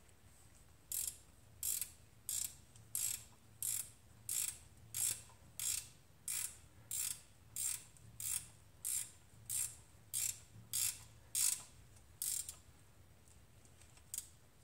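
Hand ratchet with a 14 mm socket tightening a pinch bolt by hand: a burst of pawl clicks on each back-stroke, about eighteen strokes at an even pace of roughly one every two-thirds of a second, stopping a little before the end as the bolt comes up snug.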